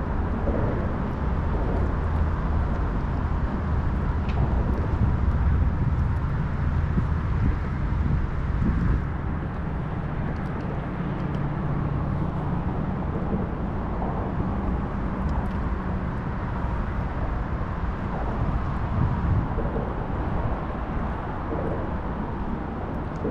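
Steady low rumbling noise of wind buffeting the microphone over open water, heavier in the first half.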